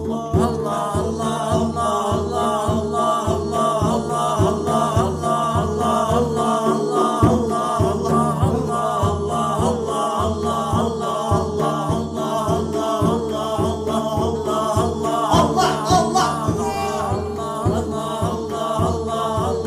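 Zikr: voices in chorus chanting the name of God (Allah) over a regular, repeating low pulse.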